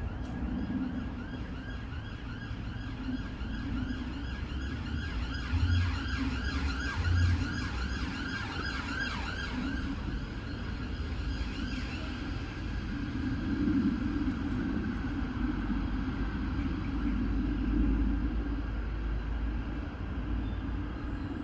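A distant emergency-vehicle siren wailing in quick repeated sweeps, fading out about halfway through, over a steady low rumble of traffic.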